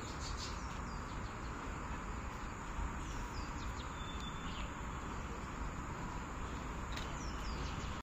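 Outdoor ambience: a steady hiss of insects and background noise, with short, falling bird chirps scattered throughout.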